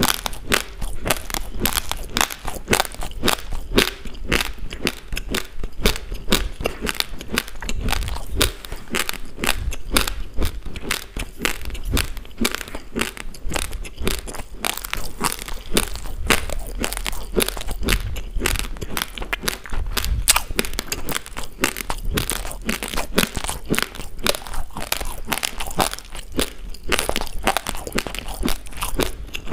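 Raw basmati rice grains being chewed and crunched between the teeth, close to the microphone: a dense, unbroken run of small crunches, many to the second.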